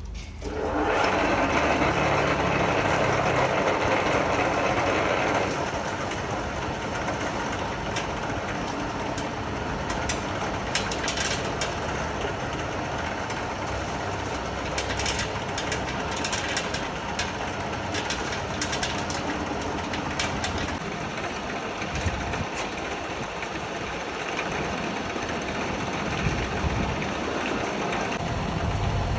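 Feed grinder running while grinding chicken feed: a steady mechanical din, louder for the first few seconds, then settling a little lower, with many quick ticks and rattles of grain through the middle.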